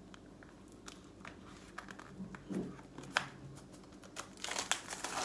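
Small clicks and taps of items being handled, then plastic packaging starting to crinkle about four and a half seconds in as the wrapping on a calendar is pulled at.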